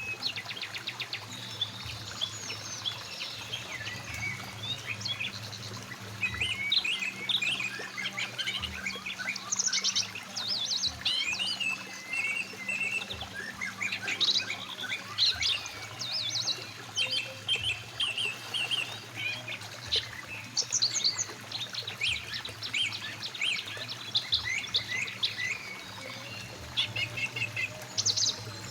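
Several birds chirping and singing in quick, overlapping phrases over the steady rush of a flowing mountain stream.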